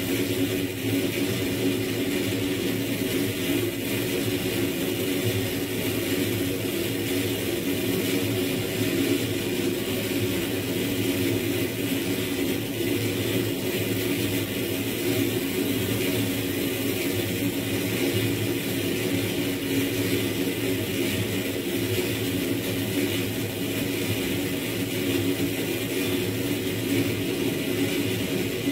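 Experimental electronic noise drone from the frakMSP software suite: a dense, steady wall of sound with a low hum and a hiss on top, holding without a break.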